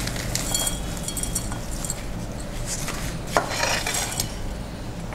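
Paper towel rustling and crinkling as fried grated potato sticks and fried peanuts and nuts are tipped off it into a bowl, with small rattles and clicks of the nuts against the bowl and one sharper knock about three and a half seconds in.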